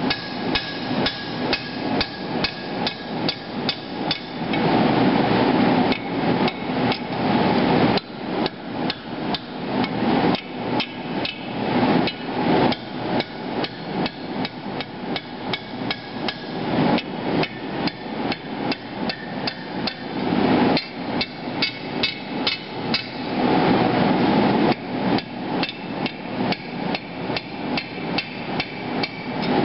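Hand hammer striking hot steel on an anvil, a steady run of blows about three a second, as the flattened end of a machete blank is curled over into a tubular socket handle. A few stretches of steady rushing noise come between runs of blows.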